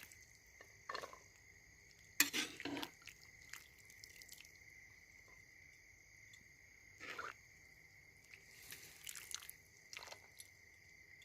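Cookware and utensils being handled: scattered clinks and knocks, a cluster about two seconds in and another near the middle, over a steady high-pitched tone.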